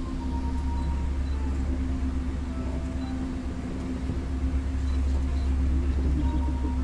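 Steady low hum with a constant droning tone, heard inside an aerial ropeway cabin as it travels along its cables.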